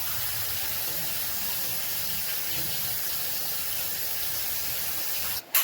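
Ground turkey sizzling steadily in a hot pan as it browns. The sizzle cuts off suddenly near the end, and a single sharp click follows.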